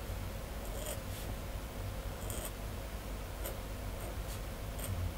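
Steel dip-pen nib scratching across manga manuscript paper in short strokes, about one a second, during inking, over a low steady hum.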